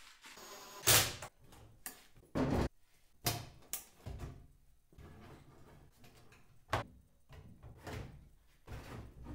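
A wooden drawer being fitted onto metal telescopic drawer slides and pushed in and out of a cabinet: a series of knocks and clatters, the loudest about a second in.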